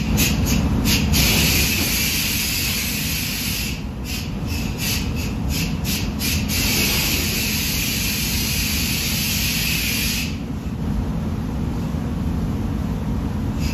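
Air spray gun hissing as paint is sprayed onto a car panel: a few short trigger spurts, then long passes, stopping about ten seconds in. Under it runs the steady low rumble of the spray booth's ventilation.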